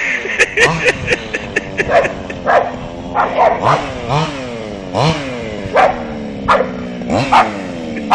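Staffordshire bull terrier barking excitedly and repeatedly, short sharp barks every half-second to second, at a radio-controlled truck. Under the barks the RC truck's motor whines, its pitch falling and rising again several times as the truck slows and speeds up.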